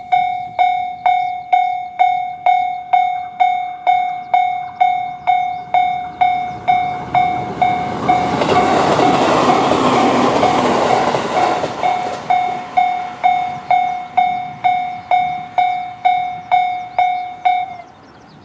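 Japanese level-crossing electronic alarm bell (the JR standard tone) ringing at about two strikes a second, each strike ringing on briefly. An E653-series electric express train passes from about eight to twelve seconds in, its noise briefly louder than the alarm, and the alarm stops just before the end.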